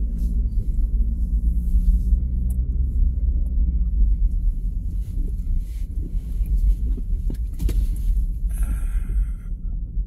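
Steady low rumble of a car's engine and tyres, heard inside the cabin as the car moves off slowly, with a brief hiss near the end.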